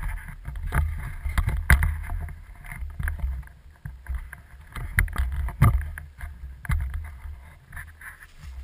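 Uneven low rumble on a helmet-mounted camera's microphone, with several sharp knocks and thumps at irregular intervals.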